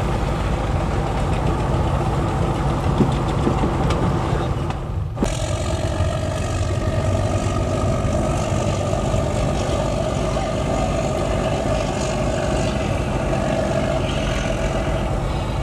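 A fishing boat's Doosan marine diesel engine running steadily with a deep hum. The sound breaks off briefly about five seconds in, then carries on with a steady mid-pitched tone over the hum.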